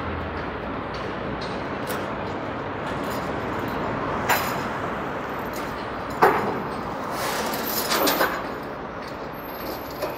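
Busy city street noise: a steady wash of traffic and crowd, broken by a few sharp clacks about four and six seconds in and a short cluster of them near eight seconds.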